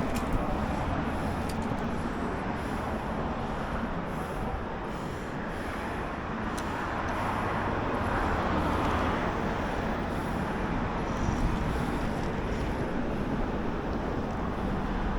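Steady road and wind noise, swelling as a vehicle passes about eight seconds in.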